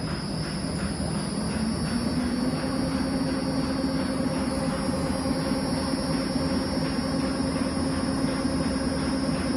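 Bench-top gear-drive planetary ball mill running: its drive whine rises in pitch over the first two seconds or so as the inverter speeds it up, then holds steady over a constant mechanical rumble.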